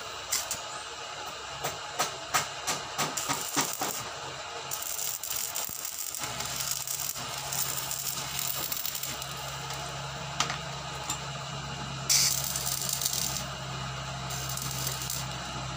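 Stick-welding arc crackling and sizzling steadily from about five seconds in, with a louder burst near the end and a low steady hum underneath. It is preceded by a few scattered sharp ticks in the first seconds as the arc is being struck.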